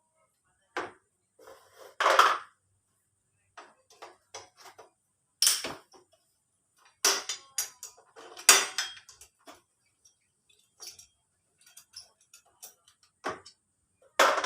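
Metal hand tools and engine parts clinking and knocking against each other as an engine is taken apart. The clanks come irregularly with short quiet gaps, the loudest about two seconds in, a cluster around seven to nine seconds, and one more near the end.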